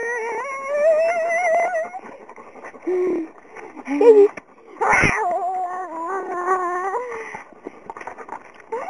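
A dog howling and whining in long, wavering, rising cries while play-wrestling, with shorter cries in between and a loud, sharp cry about five seconds in.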